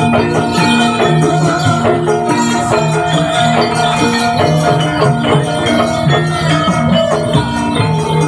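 Live gamelan music for a kuda lumping prajuritan dance: short pitched notes from the ensemble repeat in a steady, unbroken pattern.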